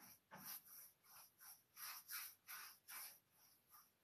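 Faint, quick rubbing strokes, about two or three a second, of an applicator spreading sealing-wax top coat over the painted surface of a wooden chest.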